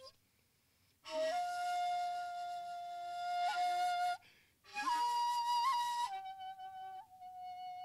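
Shakuhachi (end-blown bamboo flute) playing a slow phrase. After about a second of silence a breathy note starts and is held for some three seconds. After a brief pause a higher note sounds, then the line falls back to a lower held note.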